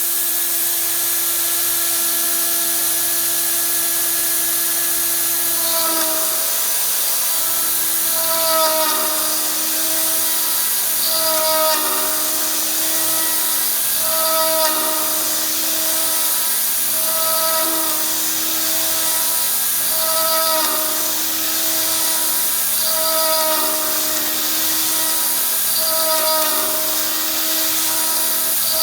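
A RotoZip rotary tool, run slow on a Variac as the spindle of a DIY CNC router, running steadily while milling aluminium with a high hiss. Stepper-motor whine from the axis drives changes pitch as the table moves back and forth, repeating about every three seconds from about six seconds in.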